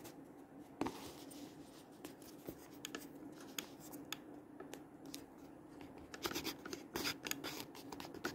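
Faint handling noises, scratches and small clicks, over a low steady hum, with a busier cluster of clicks about six to seven and a half seconds in. The piano is silent.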